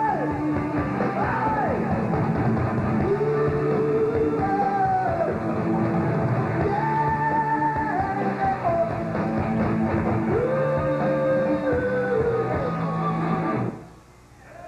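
Live rock band playing: electric guitar, bass and drums under a lead line of long held notes that bend and slide in pitch. The music stops about a second before the end.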